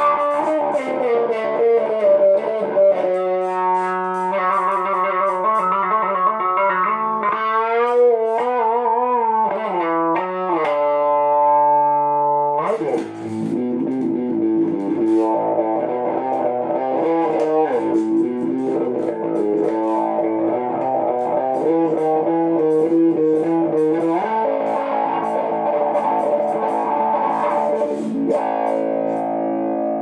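Aria Pro II SB electric bass played through an Ibanez TS9 overdrive and a Boss CS-3 compressor into an Ampeg amp, giving a distorted lead tone. It plays held notes that waver with vibrato and bends about eight to eleven seconds in, then busier, chord-like playing from about thirteen seconds.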